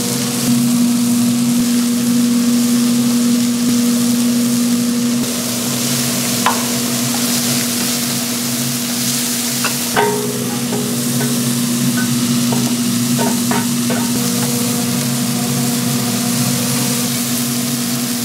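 Food frying and sizzling steadily on a hot griddle, over a constant low hum, with a few sharp metal clicks, the clearest about six and ten seconds in.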